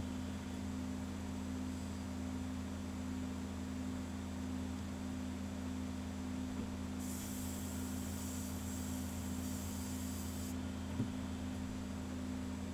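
Airbrush spraying paint through a mesh stencil onto a fishing lure: a hiss of air and paint lasting about three and a half seconds, starting a little past the middle, over a steady low hum. A single light click comes near the end.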